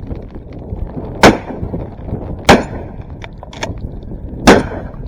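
Three shotgun shots fired in quick succession, the second about a second after the first and the third about two seconds later, over a steady low rumble of wind and rain.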